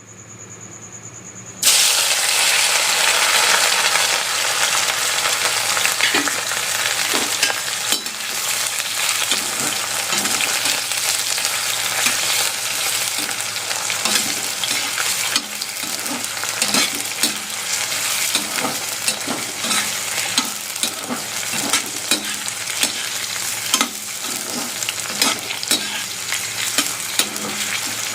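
Potato French fries deep-frying in hot oil. A loud sizzle starts suddenly a couple of seconds in, as the potatoes go into the oil, and then the oil bubbles steadily, with short light knocks repeating throughout.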